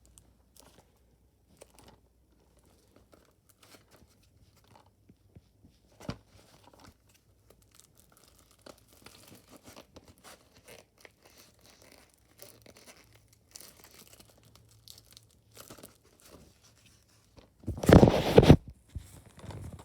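Plastic shrink wrap on a Blu-ray case being picked at and torn open: scattered faint crinkles and clicks, then one loud, brief tearing rip near the end.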